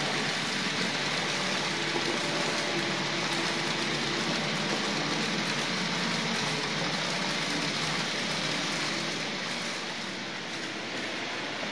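N-scale model train running on the track: a steady, noisy rush of small wheels on rails with a faint motor hum under it, easing a little near the end.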